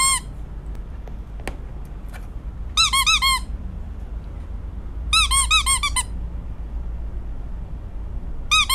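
Quick, high squeaky chirps in clusters of four to six, each cluster lasting about half a second to a second and repeating every two to three seconds.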